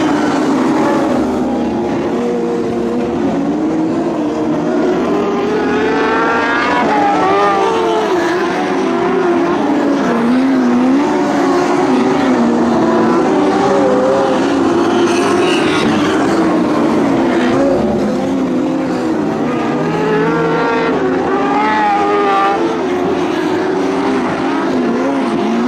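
Several winged lightning sprint cars racing, their engines revving together. Their pitches repeatedly climb and drop as the cars accelerate down the straights and back off into the turns, with a few high rising whines standing out as cars pass close.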